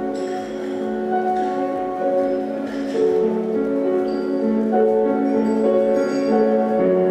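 Live flute and grand piano duet playing a slow classical melody, the flute holding long notes over the piano.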